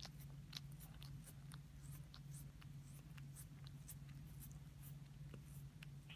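A cat licking a person's fingers: faint, irregular little wet rasping ticks, several a second, over a steady low hum.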